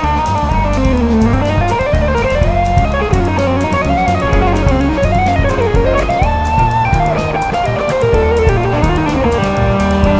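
Jazz-fusion electric guitar solo: a single smooth, flowing lead line that weaves rapidly up and down over bass and drum kit, settling into a held note about six seconds in.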